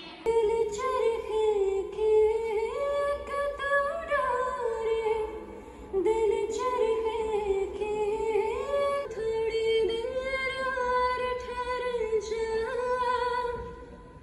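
A woman singing an unaccompanied melody into a microphone over a PA, in long held phrases with a short break about six seconds in.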